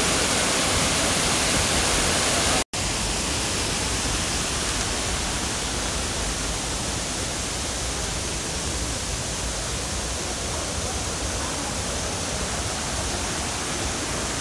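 Steady rush of a waterfall, cut off for an instant about three seconds in and then resuming slightly quieter.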